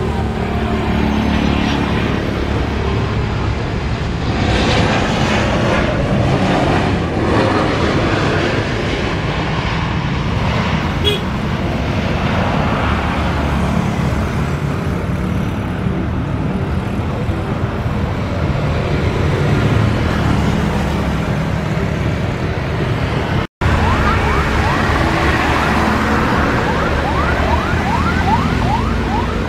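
Jet engines of a landing Boeing 737: a steady roar as it touches down and rolls out, growing louder for several seconds a few seconds in. After a sudden break near the end, the rising and falling whine of an Airbus A320 approaching to land.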